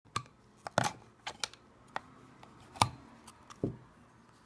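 Sharp metallic clicks and taps, about eight at uneven spacing and loudest twice, as the metal top cover of a Western Digital Caviar Blue hard drive is worked loose and lifted off its base.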